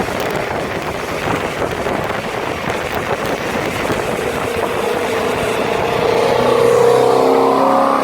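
Shelby GT350R's 5.2-litre flat-plane-crank V8 on a highway pull: steady road noise for a few seconds, then the exhaust note climbs in pitch as the engine revs up, loudest near the end.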